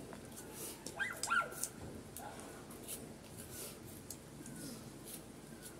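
Close mouth noises of people eating cheese balls: soft chewing and short sniffs scattered throughout, with a brief squeaky whimper about a second in.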